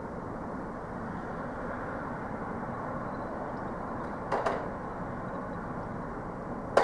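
Home delivery van loading in a supermarket goods yard: a steady mechanical hum, with two close knocks about four and a half seconds in and a sharper, louder bang at the very end, like van doors or loading gear being shut.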